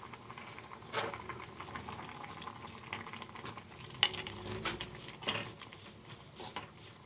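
Vegetables boiling in water in an open steel pot, a steady bubbling with small pops. A metal ladle stirs through them and clinks sharply against the pot a few times.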